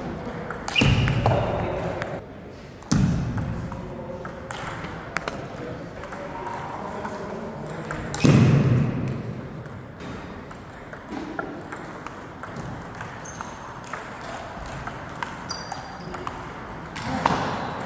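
Table tennis ball clicking sharply off paddles and the table during rallies. A few louder bursts stand out over the clicks about 1, 3, 8 and 17 seconds in.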